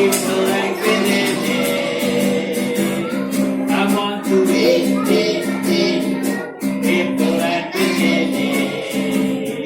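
Singing over strummed acoustic guitar.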